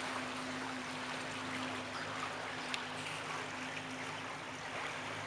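Small hire speedboat's engine running steadily at low speed, a low hum, with water rushing and splashing along the hull. A single sharp click about halfway through.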